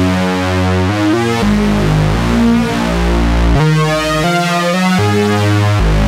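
Sequential OB-6 analog polysynth playing its 'Dirty Sync' oscillator-sync patch, dry with no added effects. Bright, buzzy notes over a deep bass change every second or so.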